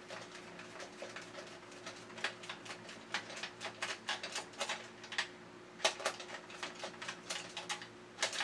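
Screwdriver working screws out of a plastic toy robot's body: a run of light, irregular clicks and ticks, about two a second, as the tip turns in the screw heads and the plastic shell.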